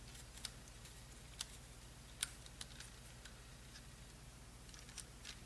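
Faint, scattered plastic clicks as a Professor Pyraminx twisty puzzle is handled and turned, about seven in all, over a low steady hum.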